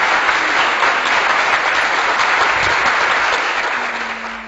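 Crowd applause, a dense even clapping, loud and steady, fading out near the end.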